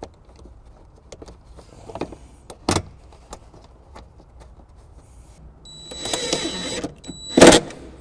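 Small clicks of a cargo-hook bolt being handled and threaded by hand. Then a cordless power driver runs with a steady high whine for about a second, driving the bolt in. A sharp knock follows near the end.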